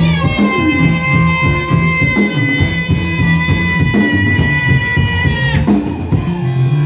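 Live band music for dancing, with drums, bass and guitar, over which a high note is held for about five seconds before breaking off.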